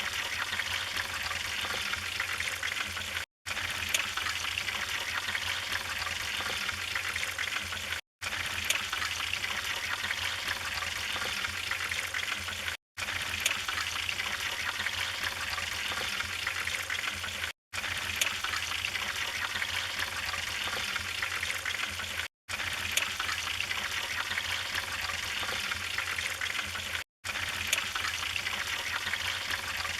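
Wood fire in a fireplace burning with a steady crackling hiss and scattered sharp pops. The sound cuts out completely for a split second about every five seconds.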